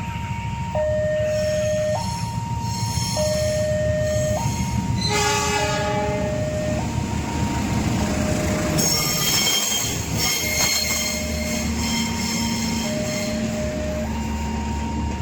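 Passenger train passing a level crossing, with a steady low rumble under a crossing alarm that alternates between two tones about every second. The locomotive's horn sounds about five seconds in, and a high wheel squeal follows around nine to eleven seconds.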